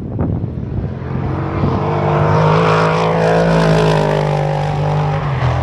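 Classic racing car's engine held at high revs on a steady note, growing louder to its peak midway and easing off slightly near the end as the car runs past.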